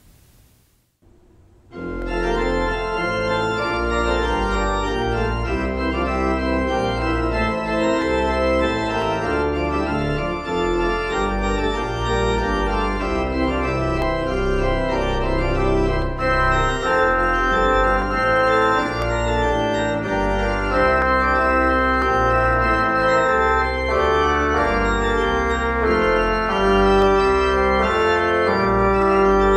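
Organ postlude beginning about two seconds in: sustained chords over a deep bass line, the chords changing every second or so.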